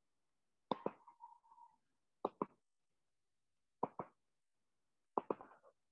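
Computer mouse clicking: four pairs of short, sharp clicks, each pair a button press and release, about one and a half seconds apart.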